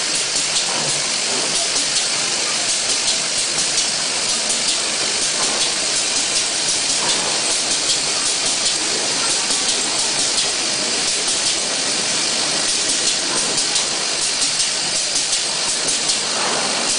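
QLQ-007 pneumatic slider assembly machine running: a steady hiss of compressed air with a quick, uneven run of light ticks over it as it cycles.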